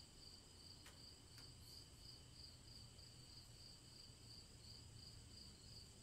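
Faint chorus of night crickets: one high chirp pulsing a little more than twice a second over a steady high trill.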